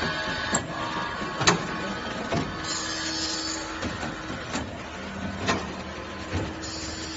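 Automatic saw-blade tooth grinding machine running through its cycle: sharp mechanical clicks come roughly once a second over a steady hum, and a high hiss comes in twice.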